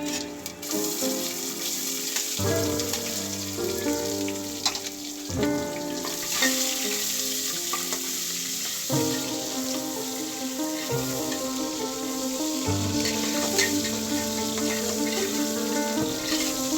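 Food sizzling as it fries in hot oil, with steady hissing and some stirring, under background music.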